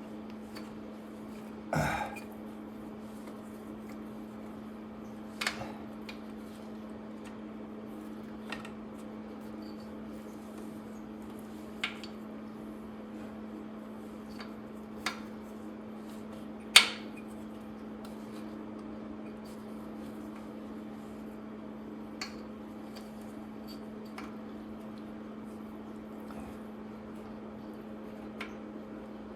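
Single metallic clinks of a wrench working rusted exhaust manifold nuts, coming every few seconds, the sharpest about two-thirds of the way through, over a steady low hum.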